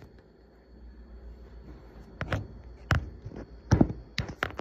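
A handful of sharp knocks and taps, about six in the second half, as things are handled and bumped at a kitchen counter.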